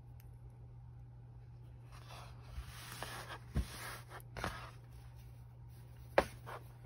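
Fabric rustling and being handled as a folded sleeve is pinned, right sides together. There are a few light knocks, and one sharp click near the end.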